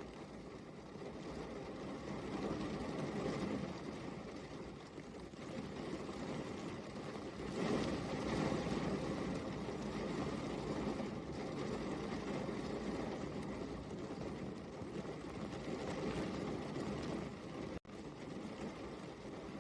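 Steady rain, a dense even hiss with a low rumble, swelling about eight seconds in. It cuts out for an instant near the end.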